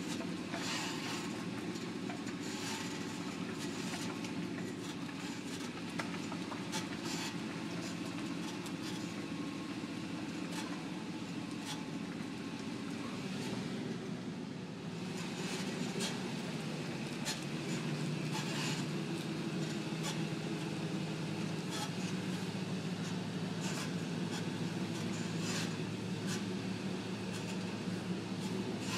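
Truck driving slowly, heard from inside the cab: a steady engine and tyre rumble, a little louder from about halfway through.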